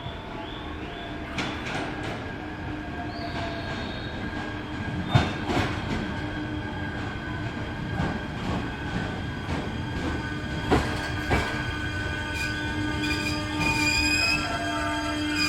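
JR East E129 series electric train pulling in and slowing, with several sharp knocks of wheels over rail joints in the middle and high squealing from the wheels and brakes building toward the end as it comes to a stop.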